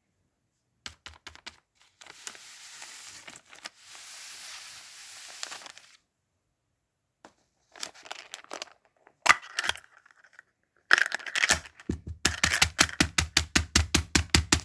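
Close handling noises: scattered clicks and a stretch of crinkling, a few sharp knocks, then a fast run of about eight taps a second with a deep thump in each near the end.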